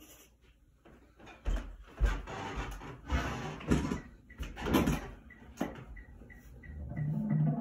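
Knocks, bumps and rustling as a drummer settles onto a seat and picks up his drum and sticks. A little past halfway, steady metronome clicks begin at about three a second, and low musical notes start in near the end.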